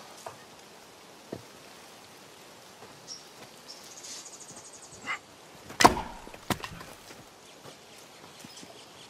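Quiet background with scattered small knocks and clicks. The sharpest knock comes about six seconds in, with another shortly after.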